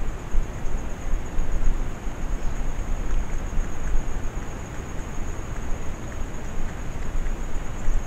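Wind buffeting the microphone: an uneven low rumble and hiss that swells and falls, with a thin, steady high whine over it.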